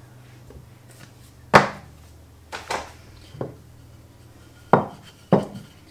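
Six sharp knocks and taps, the loudest about a second and a half in: a wooden rolling pin and a plastic flour scoop being handled and set against a stone kitchen countertop.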